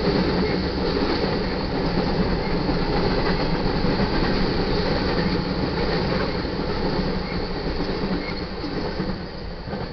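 Covered hopper cars of a freight train rolling past on the rails, a loud steady rumble of wheels on track that fades over the last few seconds as the end of the train goes by.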